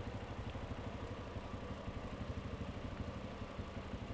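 Motorcycle engine idling with a steady, rapid, even pulse.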